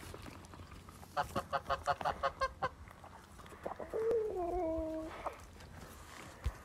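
Domestic goose calling: a fast run of about ten short cackling calls, then about two seconds later one longer, wavering call.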